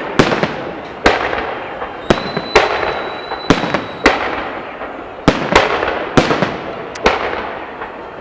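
Aerial fireworks shells bursting in a salute, a sharp bang every half second to a second, each trailing off in a fading rumble and crackle. A faint thin whistle runs for about two seconds in the middle.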